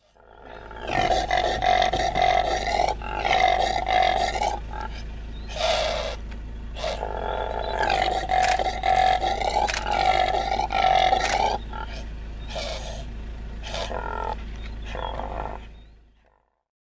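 Impala calling: a run of loud, roaring calls in repeated bouts with short breaks, the later bouts quieter. A steady low hum lies under them, and the sound fades in at the start and out before the end.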